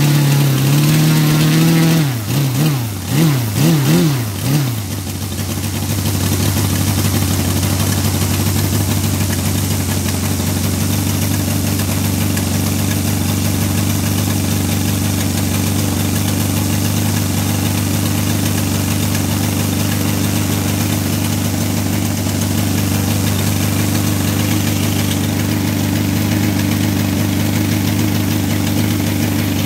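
Saito FG-60R3 three-cylinder four-stroke petrol radial model aircraft engine running with its propeller turning. It holds a fast speed at first, then rises and falls in speed several times between about two and five seconds in, then settles to a steady idle.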